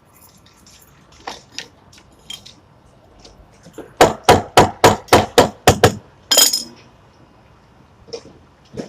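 A quick run of about eight sharp hammer blows on metal, roughly four a second, then a brief metallic rattle. The blows are knocking loose an air-conditioner fan blade that has seized on its shaft.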